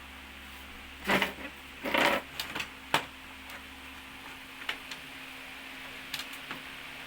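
Clatter and sharp clicks of small parts and screws being handled while a flat-screen TV is taken apart, over a steady low hum. The loudest clatters come a second or two in, with one sharp click about three seconds in and a few fainter clicks near the end.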